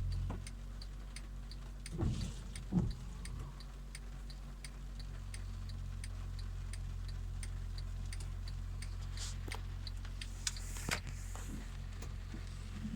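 Car engine idling with a steady low hum while the turn-signal indicator ticks evenly, about three clicks a second; two dull thumps come about two and three seconds in.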